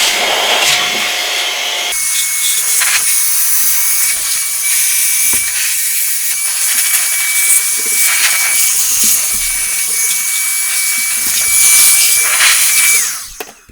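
Handheld electric air blower (electric duster) running continuously, blowing a loud rush of air with a steady high motor whine as it clears dust from inside a computer case. It shuts off near the end, the whine falling as the motor spins down.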